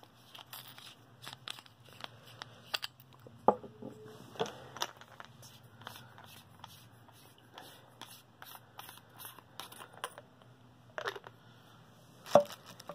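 Plastic packaging being handled: crinkling and tearing, with many small clicks and a few louder snaps.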